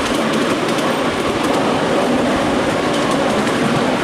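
Ride-on miniature railway train running along the track, heard from a passenger car behind the model BR class 31 locomotive. There is a steady rumble with scattered light clicks from the wheels on the rails.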